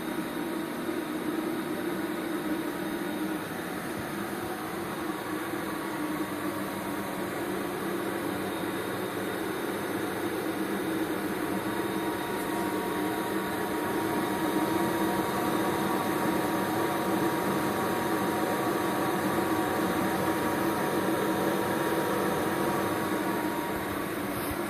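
MIG welding arc on 2 mm steel, laying a fillet weld with a ONE-WELDING MIG/ARC 350TT inverter welder: a steady, unbroken crackle and buzz that grows a little louder about halfway through.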